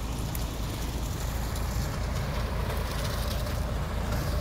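Steady low rumble of a concrete mixer truck's diesel engine running.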